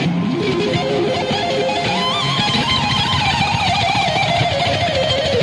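Distorted Stratocaster-style electric guitar playing a lead solo live with a band. Held notes carry wide vibrato and step slowly down in pitch through the second half.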